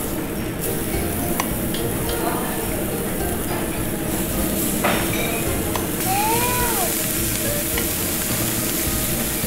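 Slices of pork belly sizzling on a hot Korean barbecue grill plate, the sizzle growing louder about six seconds in as more slices go down, with a couple of sharp clicks.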